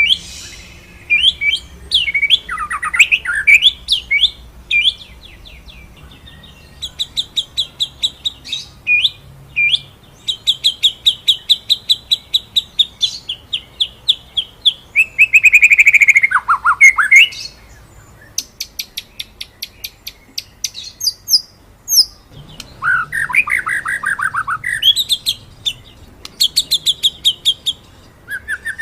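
White-rumped shama (murai batu) singing: fast rolling trills of evenly repeated notes and sharp short 'shooting' notes, broken three times by loud falling slurred phrases.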